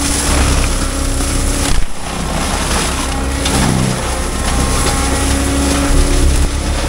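Heavy diesel equipment engine running steadily with a deep rumble and a pitched hum, briefly dropping out about two seconds in.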